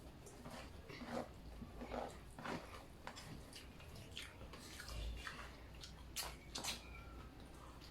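Close-up eating sounds of people chewing a meal of rice, sautéed vegetables and fried fish: soft wet mouth sounds with scattered light clicks.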